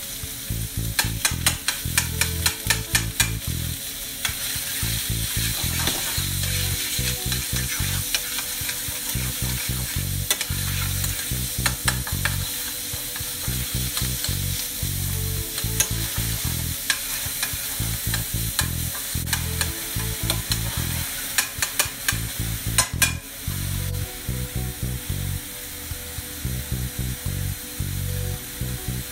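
Minced chicken breast sizzling in hot oil in a frying pan, stirred and broken up with a plastic slotted spatula that clicks and scrapes against the pan over a steady frying hiss.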